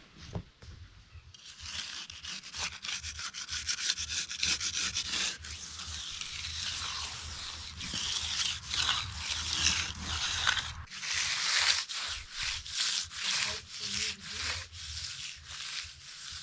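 A hand finishing tool scraping over setting concrete in repeated strokes. In the last few seconds the strokes turn short and rapid.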